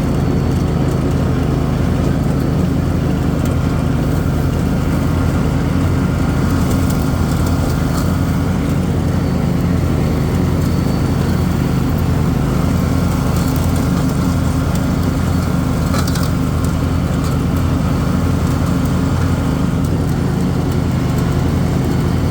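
John Deere Z465 zero-turn mower's 24 horsepower Kawasaki V-twin engine running steadily as the mower drives at speed.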